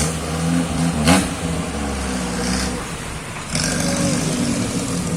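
Off-road vehicle engine running and revving, its pitch wavering up and down, with a sharp knock about a second in and the engine picking up again past the middle.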